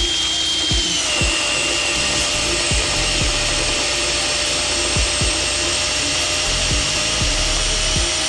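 Makita cordless drill running steadily in low gear, turning a torque multiplier to break loose a rusted leaf spring hanger bolt nut. Its motor whine drops slightly in pitch about a second in as the load comes on.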